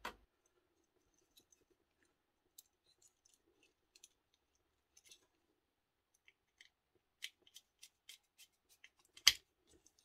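Scattered small clicks and scrapes of a screwdriver and the parts of a plastic three-pin mains plug being worked by hand, with one sharper click about nine seconds in.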